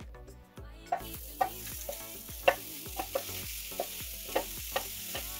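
Zucchini slices sizzling on the hot plates of a Tefal OptiGrill contact grill. The sizzling starts suddenly about a second in, with a run of light knocks as the slices are handled on the plates.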